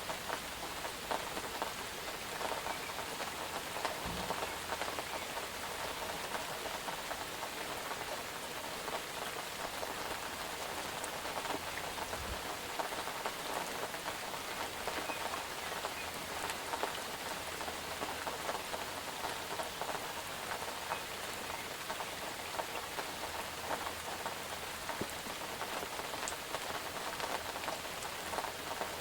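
Steady rain falling on a surface, a continuous even hiss dotted with many small drop ticks.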